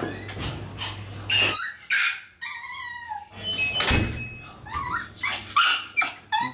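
Maltese dogs whining and yipping in short, high, repeated calls, some falling in pitch: excited whining in expectation of someone coming through the door.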